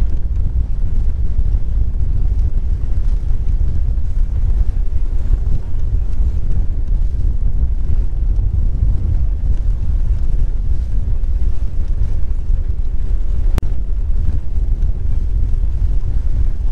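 Steady wind buffeting the microphone of a GoPro Hero7 Black clamped to the stern rail of a sailboat under sail, a constant deep rumble.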